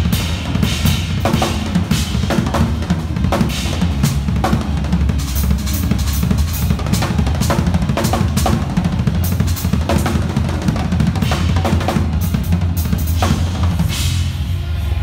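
Acoustic drum kit played fast and hard: dense bass-drum and snare strokes with frequent cymbal crashes. The drumming stops about a second before the end.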